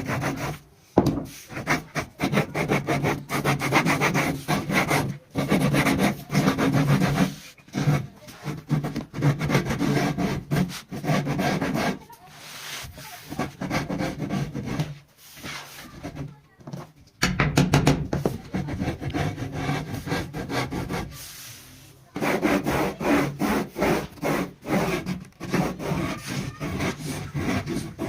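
Wood being worked by hand with rapid, repeated back-and-forth strokes, rubbing and sawing, with a few short pauses.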